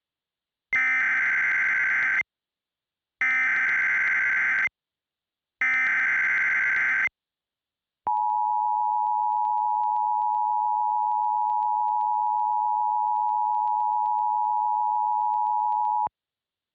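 Emergency Alert System tones: three short data bursts of the SAME header, each about a second and a half long, then the steady two-tone attention signal, held for about eight seconds and cut off sharply. These tones mark the start of an emergency alert broadcast.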